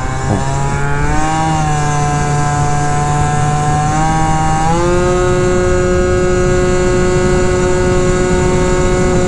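72cc Polini-kitted two-stroke Honda scooter engine through a prototype S23 exhaust pipe, running hard under way. The pitch climbs about a second in, then holds high and steady, changing note about five seconds in. The rider hears it as starving for fuel a little.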